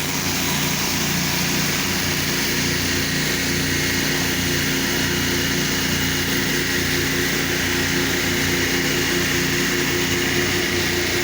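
A pressure washer's gas engine running steadily under load, with a constant hiss of high-pressure water spray.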